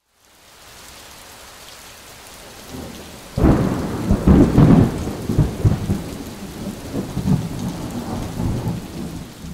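Steady heavy rain with a loud clap of thunder about three and a half seconds in, its low rumble rolling on in waves and slowly dying away.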